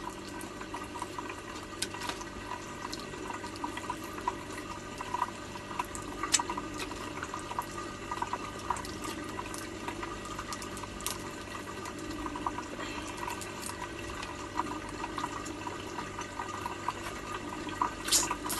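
Steady trickling and bubbling of water from an aquarium filter, with scattered small cracks and clicks as cooked crab shell is picked apart by hand, several close together near the end.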